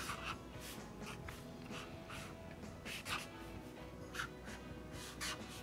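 Marker pen strokes on drawing paper: a series of short scratchy swishes, about six, spaced irregularly, over faint background music.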